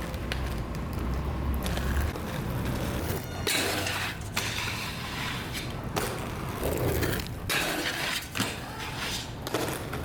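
Hard wheels rolling on pavement, with a rumble that is strongest in the first two seconds. About six sharp clacks and impacts ring out at irregular intervals from about three seconds in.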